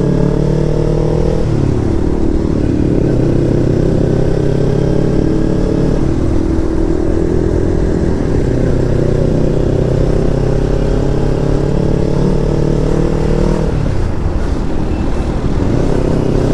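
Kawasaki Ninja 300's parallel-twin engine running at highway speed under a rider, heard over wind rush. Its note drops and climbs back three times, about a second and a half in, around six seconds in and near the end.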